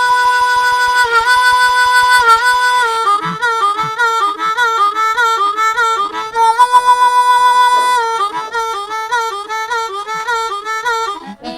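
Blues harmonica playing an instrumental break in the background music, with long held notes that bend and waver.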